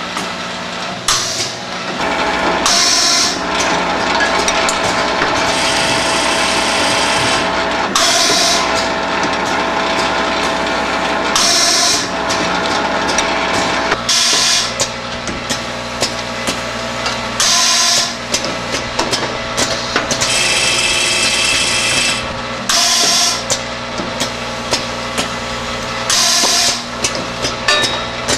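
Automatic rubber-seal deflashing machine running: a vibratory bowl feeder hums and rattles the parts while pneumatic cylinders clack and let out hissing bursts of air every few seconds.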